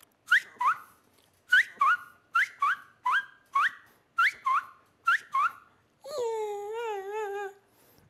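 A man imitating frog calls with his mouth: about a dozen short, sharp rising chirps, mostly in quick pairs, then, about six seconds in, a longer call with a wavering pitch.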